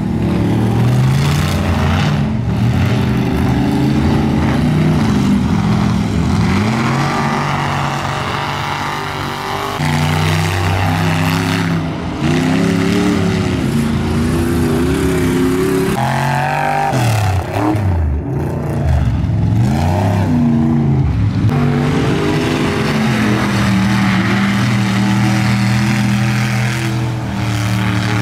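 Lifted mud trucks' engines revving hard through a mud pit, rising and falling in pitch over and over as the drivers work the throttle, with dirt spraying from the tires. The sound changes abruptly several times as one truck gives way to another.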